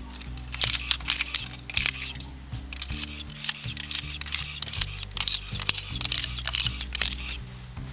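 Background music with sustained low notes changing every second or so, over many short, sharp clicks or snaps.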